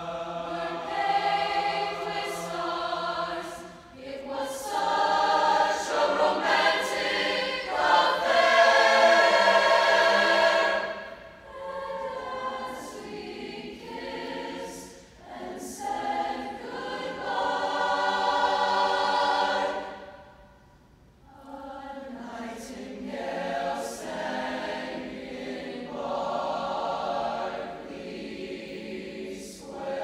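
Mixed-voice choir singing in sustained chords. It swells to its loudest about eight to eleven seconds in, breaks off briefly around twenty-one seconds, then carries on more softly.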